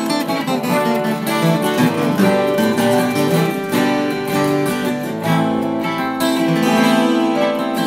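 Background music: an acoustic band song led by strummed acoustic guitar.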